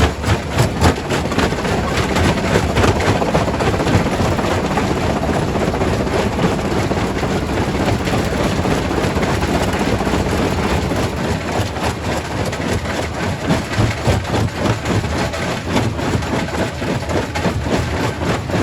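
Primary rock crusher running, rock knocking and cracking as it is broken, over steady heavy machinery noise. The knocks come thicker in the second half.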